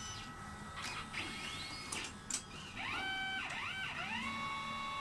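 Stepper motors of a Fuji FCR Prima computed-radiography reader whining as they drive the mechanism that takes in and reads an imaging-plate cassette. A few clicks and short rising whines come first, then several quick rise-and-fall whines, and about four seconds in it settles into a steady whine.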